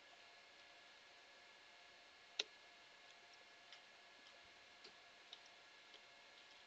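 Near silence: faint room hiss with a few soft clicks, the loudest about two and a half seconds in and fainter ones over the following few seconds.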